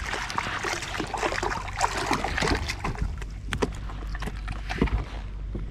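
A catfish on a jug line thrashing at the surface right beside a plastic kayak: irregular splashing and sloshing water, with many scattered sharp clicks and knocks.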